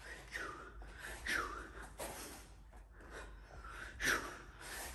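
A man's short, sharp hissing exhalations as he throws punches in a fast boxing combination, about half a dozen in quick succession, the loudest about four seconds in.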